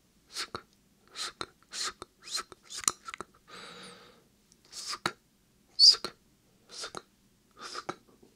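Whispered "sksk" ASMR mouth sounds: short hissing syllables repeated about every half second, with sharp wet mouth clicks between them, made close to a binaural microphone. About three and a half seconds in comes one longer breathy hiss.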